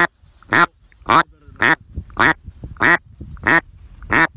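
Mallard duck call blown in a long, even cadence of loud, same-sized quacks, nearly two a second.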